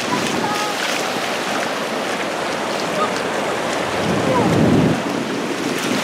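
Surf washing in over the shallows with wind on the microphone, swelling to a louder rush about four seconds in.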